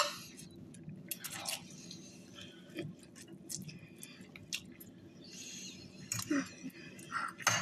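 Chewing and wet eating noises, with scattered small clicks, over a faint steady low hum.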